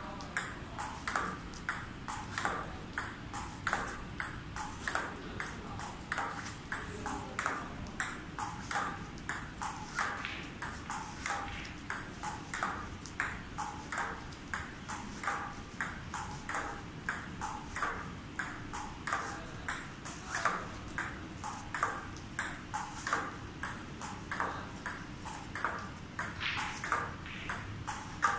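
Table tennis ball clicking in a steady rally, bouncing on the table and struck by a paddle in block practice. There are about two to three sharp clicks a second, often in quick pairs.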